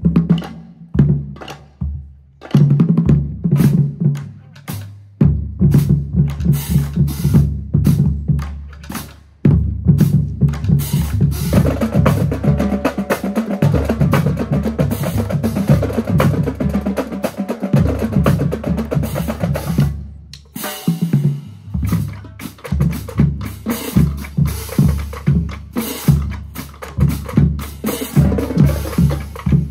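Marching drumline of snare drums, tenor drums, pitched bass drums and hand cymbals playing a show piece. It opens with rhythmic bass drum and snare patterns. From about ten seconds in the full line plays a dense, loud passage with cymbals ringing over rolls. The drums stop briefly about twenty seconds in, then pick up the beat again.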